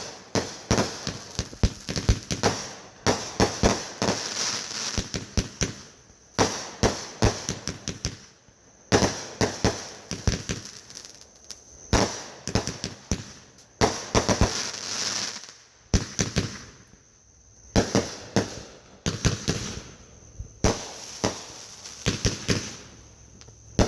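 Fireworks going off in repeated volleys: clusters of sharp bangs and crackling pops, a new volley every couple of seconds.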